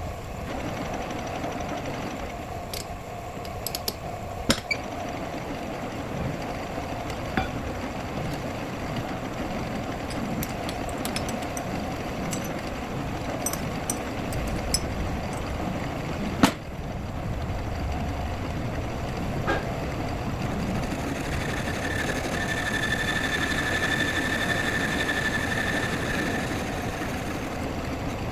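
Steady machine running, with scattered sharp metal clinks and a steady high whine from about three-quarters of the way in.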